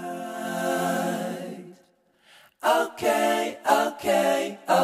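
Background music: a song led by a singing voice holding long notes, breaking off completely about two seconds in, then coming back in short sung phrases.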